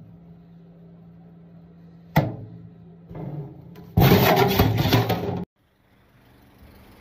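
A low steady hum, then a sharp clatter about two seconds in. About four seconds in comes a loud scraping rub of a hand sweeping across a stainless steel counter, which cuts off suddenly.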